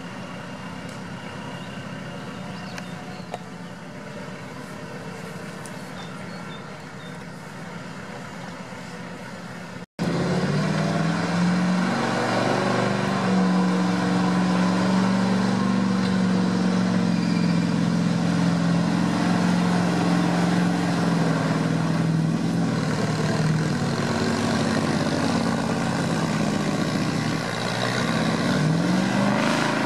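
Engines of off-road vehicles, a UAZ on big mud tyres and a GAZ-66 truck, running under load in deep mud. For the first third it is a quieter, steady engine sound. Then, after an abrupt cut, one engine is much louder and holds a steady pitch, and it revs up near the end.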